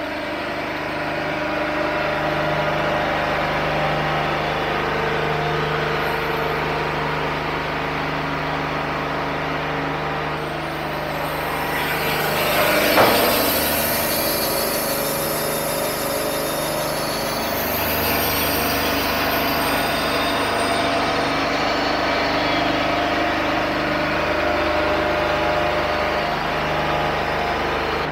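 Wood-Mizer LT40 hydraulic bandsaw mill running steadily while its saw head travels along a white pine cant. A brief louder noise about halfway through, with added hiss for a few seconds around it.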